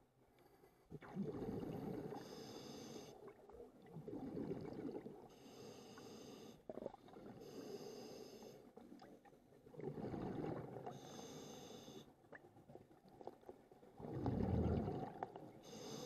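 Scuba diver breathing through a regulator underwater: bursts of exhaled bubbles rumbling and gurgling about every three to four seconds, each paired with a short, high regulator hiss as a breath is drawn. The loudest exhale comes near the end.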